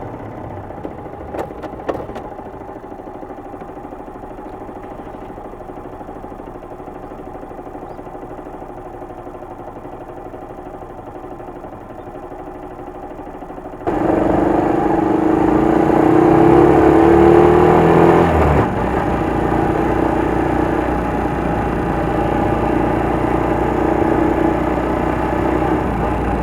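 Honda Little Cub's small four-stroke single-cylinder engine, bored up to 88cc, running on the move. About 14 seconds in it gets suddenly louder and its pitch rises under acceleration, then drops at about 18 seconds and runs on steadily.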